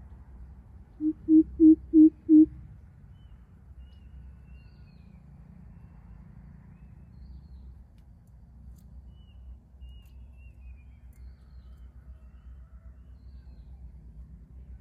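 Greater coucal calling: a quick run of five deep, hollow hoots, about three a second, starting about a second in. Faint chirps of small birds follow.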